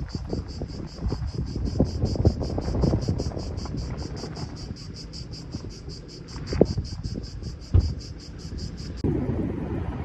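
Insects chirping in an even pulsing rhythm, about four to five pulses a second, over low wind rumble on the microphone, with two sharp knocks late on. The chirping cuts off abruptly about nine seconds in.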